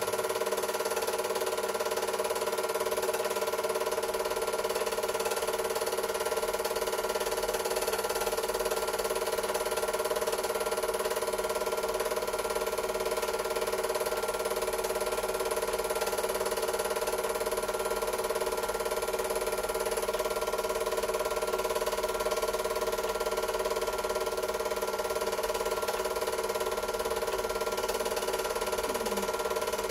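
Super 8 film projector running: a steady mechanical hum with several fixed tones, unchanging throughout.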